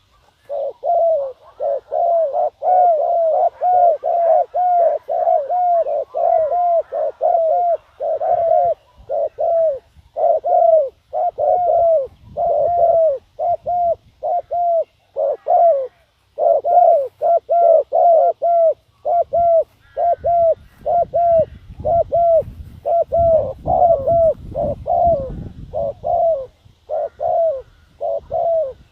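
Spotted dove cooing in a long run of short, repeated coos, about two a second, with a brief pause partway through.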